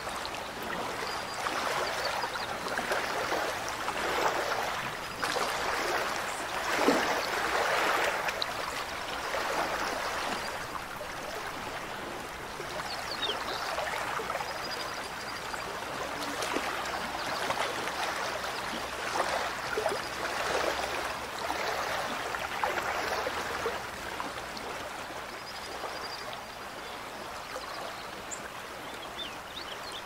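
Mountain stream running, a continuous rushing of water that swells and eases in slow waves.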